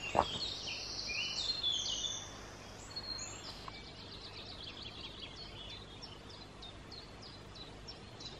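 Woodland songbirds singing: a varied, warbling song for the first few seconds, then one bird repeating a short high note about three times a second. A single footstep on the path right at the start.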